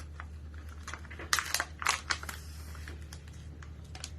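A trading-card pack wrapper being torn open and crinkled, with a cluster of sharp crackles in the middle.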